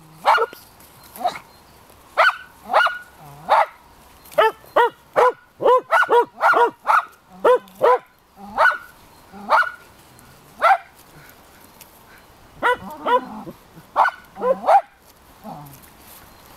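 Shetland sheepdog puppies yapping in play: a string of short, high-pitched barks, coming fastest between about four and eight seconds in, with a short lull a little past ten seconds.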